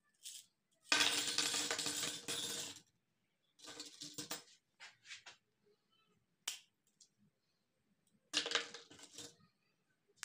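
Glass bangles jangling and clinking together as a handful is shaken, with shorter bursts of clinking after. A single sharp snap comes about six and a half seconds in as a bangle is broken between the fingers.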